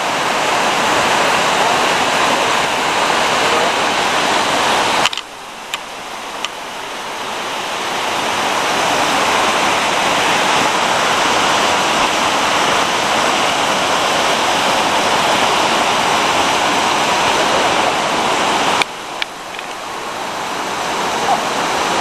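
Rushing whitewater of a cascading mountain stream below waterfalls, a steady dense roar. It drops away suddenly twice, about 5 seconds in and near 19 seconds, and builds back up each time.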